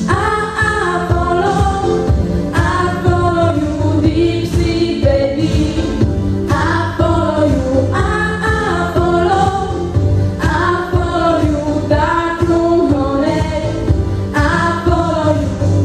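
Teenage girls singing a song in English into microphones, a lead voice with two others singing along, over musical accompaniment with a steady beat.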